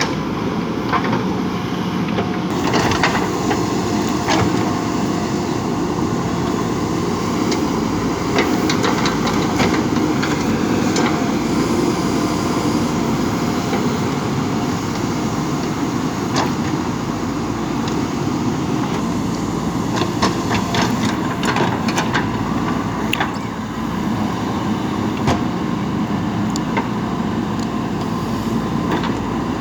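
JCB 3DX backhoe loader's diesel engine running steadily under work, with scattered sharp clanks and knocks throughout.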